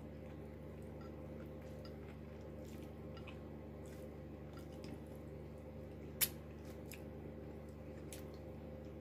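Small clicks and crackles of cooked shrimp shells being picked apart by hand on a plate, with one sharp click about six seconds in.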